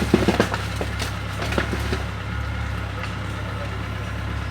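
Bulldozer's diesel engine running steadily, with a quick cluster of cracks and crunches in the first second or two as bottles of seized liquor are crushed.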